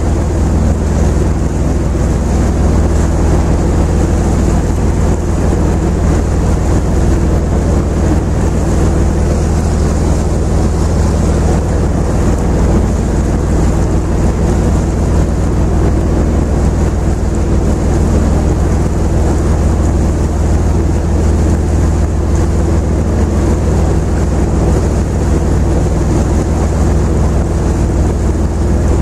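A tour boat's engine running steadily, heard from on board: a deep, even hum with a constant rushing noise over it.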